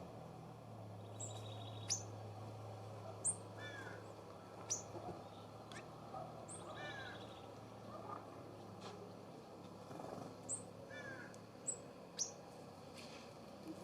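Wild songbirds calling: a scatter of short, sharp, high chirps every second or so, with a few lower rising call notes among them, over a faint steady low hum.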